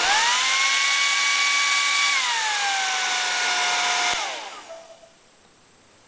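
Bosch Quattro Ion PHD5767 hair dryer blowing with a steady rush of air and a motor whine. The whine rises in pitch at the start as the fan is switched to a higher speed, then falls back about two seconds in. About four seconds in the dryer is switched off and winds down within a second.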